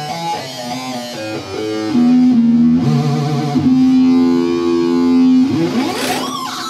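Roland GAIA SH-01 synthesizer played on its keyboard: a short run of notes, then a low note held for about three seconds, ending in a fast rising sweep near the end.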